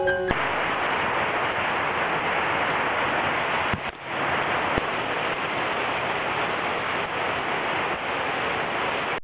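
Steady, even hiss of noise with no music or speech. It drops out briefly a little before four seconds in, and there is a single click about a second later.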